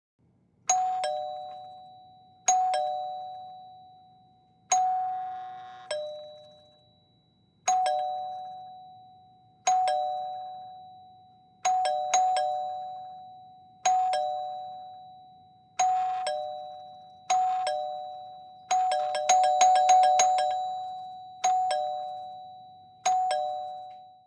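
Mechanical two-note doorbell chime ringing ding-dong about a dozen times at varying speeds, a higher tone followed by a lower one, each ringing down over a second or two. One ding near the start holds about a second before its dong, and two-thirds of the way through the button is pressed rapidly, giving a quick flurry of overlapping dings and dongs.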